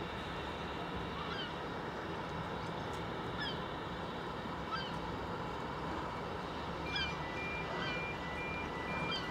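Steady hiss and rumble of a steam locomotive letting off steam. Short, falling bird calls come every second or two. From about seven seconds in, a repeated electronic beep sounds.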